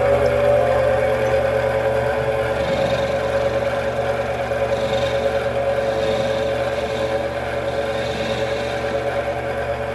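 Mini metal lathe running, turning a part, with a steady motor whine throughout.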